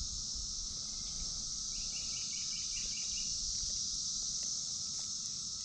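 Steady high-pitched chorus of insects, with a bird giving a quick run of about seven repeated notes around two seconds in.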